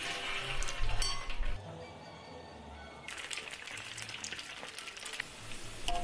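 Hot oil in a wok sizzling and crackling as food fries, with a burst of sizzle and clinks near the start and dense crackling from about three seconds in.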